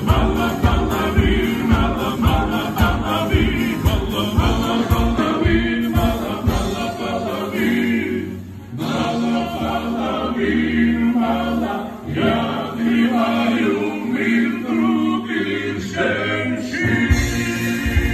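Live band music with men singing together into microphones over acoustic guitar and a steady beat. The beat stops at about eight seconds and comes back near the end, leaving held singing and chords in between.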